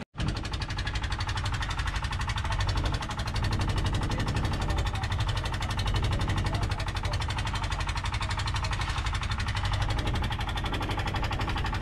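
Small wooden outrigger boat's engine running steadily under way, a fast even pulsing beat, with water rushing along the hull.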